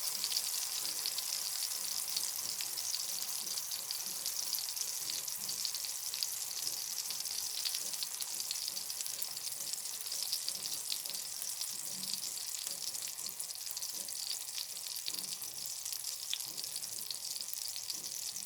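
Thick slices of bologna frying in hot oil in a skillet, a steady sizzle with dense fine crackling and popping.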